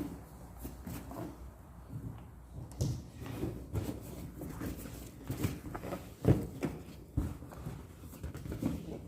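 Handling noises from putting together a balloon decoration: irregular light knocks and clicks, with one sharper knock a little past six seconds in.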